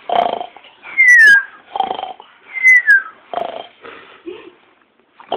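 Snoring in a quick breathing cycle: a rough breath, then a high whistle that falls in pitch, repeating about every one and a half seconds. It fades out near the end.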